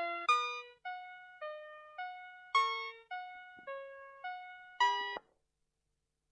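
Vtech Schlummerschnuffi baby toy playing a classical melody through its small speaker as simple electronic piano-like notes, about two a second, each note fading. It ends on a final chord about five seconds in, then stops.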